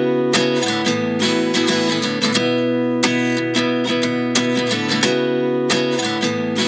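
Background music: a guitar intro of repeated strummed chords, with no singing yet.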